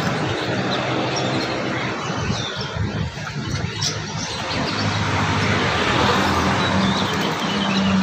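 Birds chirping now and then over a steady background noise with a low hum.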